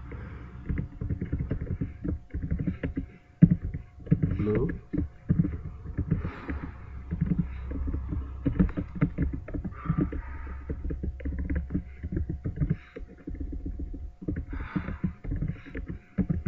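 Computer keyboard typing: a quick, uneven run of key clicks over a low rumble.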